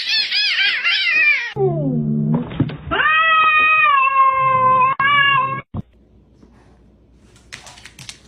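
Cats caterwauling, the fighting yowls of a standoff. A fast, wavering, high-pitched cry gives way about a second and a half in to a call that falls in pitch, then a long yowl held at one pitch that cuts off sharply. Near the end there are only faint clicks.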